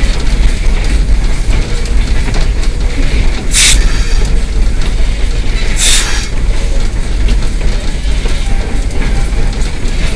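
Narrow-gauge steam locomotive under way, heard from inside its cab: a loud, steady running noise, with two short hissing bursts about two seconds apart near the middle.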